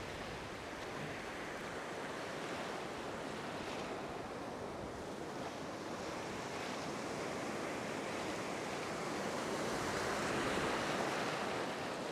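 Ocean surf breaking and washing up a sandy beach in a steady hiss, swelling louder as a wave rolls in near the end.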